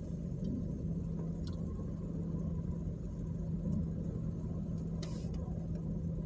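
Car cabin noise while driving: a steady low road and engine rumble with a constant hum, and a brief hiss about five seconds in.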